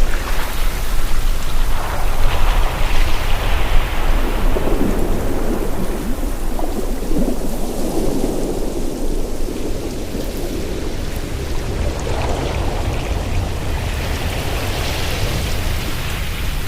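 Sea waves washing in and drawing back, swelling about every six seconds, over a steady low rumble of wind buffeting the microphone.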